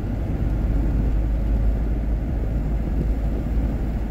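Steady rumble of a car driving at speed, heard from inside the cabin: mostly low road and engine noise with no distinct events.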